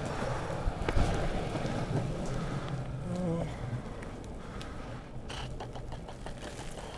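Longboard wheels rolling on an asphalt path: a steady rumbling hiss, with a sharp knock about a second in and a run of quick clicks about five seconds in.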